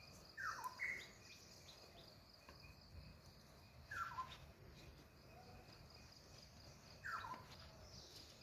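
A bird giving short falling calls, repeated about every three seconds. Under it runs a steady high-pitched insect hum, faint outdoor noise.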